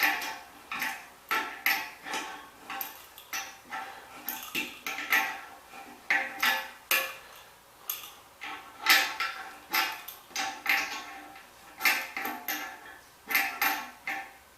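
Ratcheting wrench clicking in short strokes, with metallic clinks, as the nuts on the toilet's bolts are snugged down. The clicking stops just before the end.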